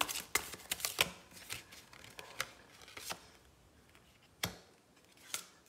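A Tarot Art Nouveau deck being shuffled by hand, a quick run of flicking card clicks in the first second and a half, then a few single taps and slaps as cards are drawn and laid on a cloth.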